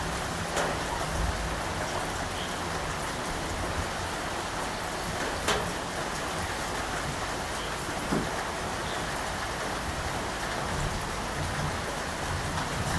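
Steady, even rain falling and pattering on surfaces, with a few sharper single drops striking now and then.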